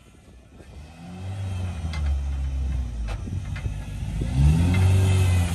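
Rock-crawler buggy's engine revving up under load as it climbs a boulder. It comes in about a second in and surges louder again near the end. A few sharp knocks are heard in between.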